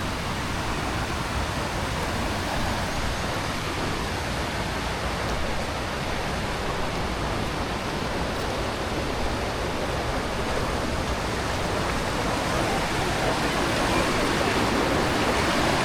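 Water rushing steadily in a stream, a constant even hiss.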